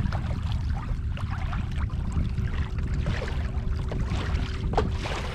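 Water lapping and splashing against a kayak's hull, with small scattered ticks and knocks, over a steady low rumble.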